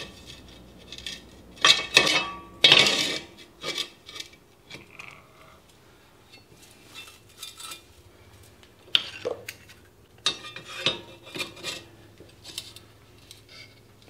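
Scattered metallic clinks and scrapes of steel being handled: swarf chips pulled off a magnetic drill's annular cutter, and square steel tubing and a C-clamp shifted on a steel bench. The loudest clatters come in the first few seconds, with another run of lighter clinks about nine to twelve seconds in.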